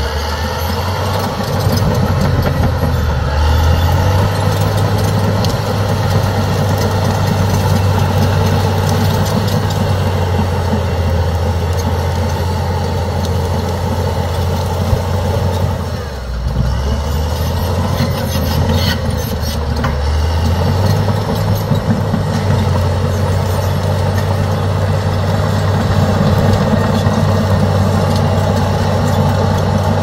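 A 200-horsepower Caterpillar crawler bulldozer's diesel engine running hard as the dozer pushes into trees and brush. The engine note sags near the start and again about halfway through, then climbs back up as the load comes off.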